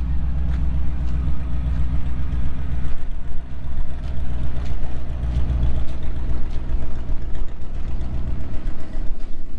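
Chevrolet Silverado pickup's engine idling steadily, its low note easing off near the end.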